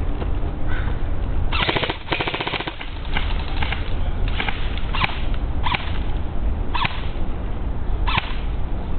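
Airsoft guns firing: a rapid full-auto burst lasting about a second, then single shots every second or so, over a steady low rumble.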